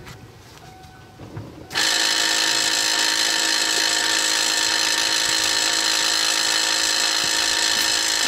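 The 1998 Lincoln Mark VIII's air-ride suspension compressor, a new Dorman assembly, switches on suddenly about two seconds in and runs steadily with an electric-motor whine. It now runs on the relay from the old compressor, showing that the relay supplied with the new unit was the fault.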